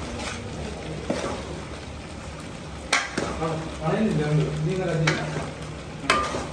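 Chicken curry sizzling in a large metal cooking pot as it is stirred with a spoon. The spoon knocks sharply against the pot three times.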